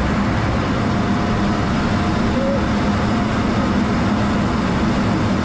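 Jet aircraft in flight, heard from inside the cockpit: a steady rushing noise of engine and airflow with a low drone underneath.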